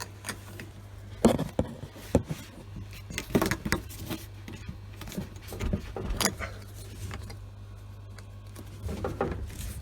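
Plastic clicks, knocks and rattles of canister filter hose fittings and clamp clips being handled and pushed into place, over a steady low hum.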